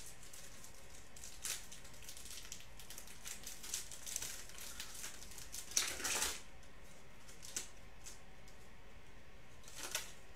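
Foil wrapper of a Panini Prizm football card pack being torn open and crinkled by hand, in scattered crackles, the biggest about six seconds in and another near the end.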